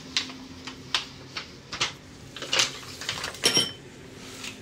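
Dishes being set down on a laid table: a string of light knocks and clatters, with one ringing clink about three and a half seconds in.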